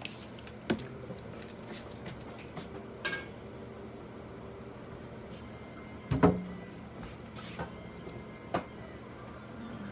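Scattered clicks and knocks of handling on a stainless steel veterinary exam table, the loudest a thump about six seconds in, over a steady low hum of room equipment.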